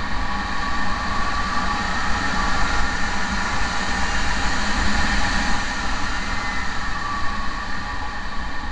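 Steady rushing noise of air over a camera carried aloft in flight, with a faint steady whine and a low rumble underneath.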